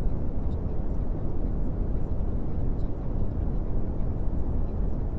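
A steady, even low rumble of noise with no distinct events, like an aircraft-cabin or brown-noise background track.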